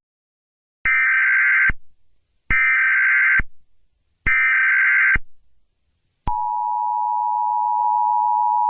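Emergency Alert System SAME header: three short bursts of screeching data tones about 1.7 s apart, marking the start of an emergency alert broadcast. About six seconds in, the steady two-tone EAS attention signal begins and holds.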